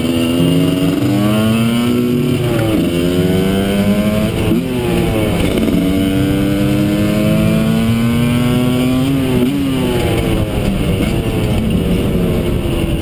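Husqvarna SM 125's two-stroke single with a Jollymoto expansion-chamber exhaust, revving up under acceleration. The pitch climbs and then drops sharply about three times as it shifts through the gears.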